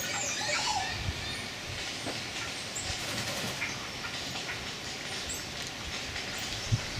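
Rainforest ambience: a steady hiss with a few faint bird chirps and short falling whistles, the clearest of them in the first second.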